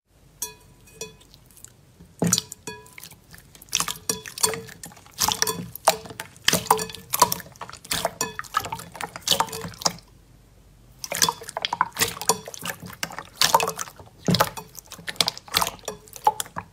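Clear blue slime in a glass bowl being pressed and kneaded by hand: irregular wet clicks and squelches, sparse at first, then coming thick and fast, with a short lull about ten seconds in.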